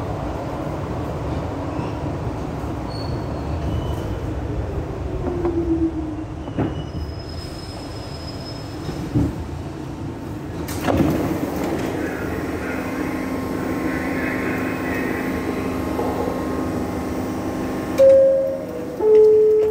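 Kawasaki R62 New York subway car rumbling along the rails, with a few sharp clanks and a steady hum. Near the end comes a loud two-note chime, the second note lower than the first: the subway door chime.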